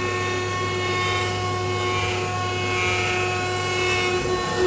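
Desktop CNC router spindle running at a steady whine while its end mill cuts into a solid block of pressure-treated wood. The cutting noise swells and eases as the bit moves along the cut.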